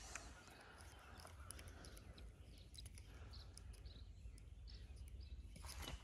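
Near silence: quiet outdoor ambience with a low steady rumble and a few faint, short high bird chirps.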